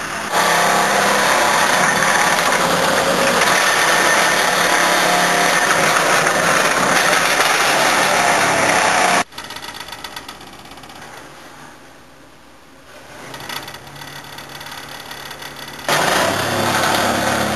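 Hydraulic vibratory compactor attachment on an excavator pounding into the ground, a loud, dense, steady noise with the excavator's engine underneath. It stops abruptly about nine seconds in, leaving only the quieter engine running, then starts pounding again near the end.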